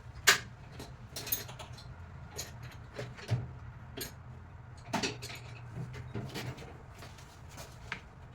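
Irregular clicks, taps and light clatters of small hard parts being handled, the sharpest about a third of a second in, over a low steady hum.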